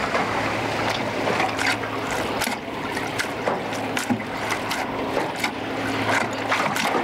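Wind and water noise aboard a small aluminium boat, with a low steady hum and a few short knocks scattered through.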